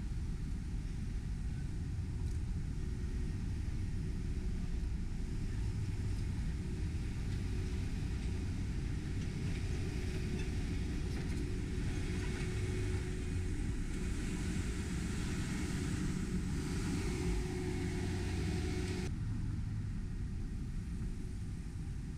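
Road traffic and a zipper truck (barrier transfer machine) moving along the bridge, heard as a steady low rumble. A hiss of tyres and machinery builds as the machine passes close by and then cuts off abruptly near the end.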